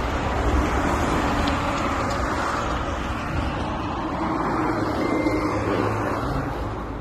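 Steady wind and road noise on a phone microphone carried on a moving bicycle, with motor traffic on the street.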